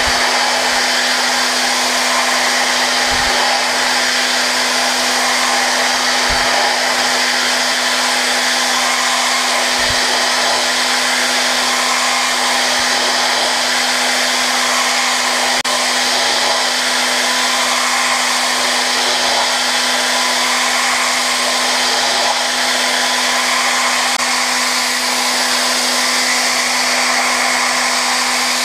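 Okuma GENOS M560-V machining centre's spindle running at high speed with a steady tone over an even hiss, while a small end mill takes a light Z-level finish pass in hardened S7 tool steel (56 Rc). A few faint low knocks sound about 3, 6 and 10 seconds in.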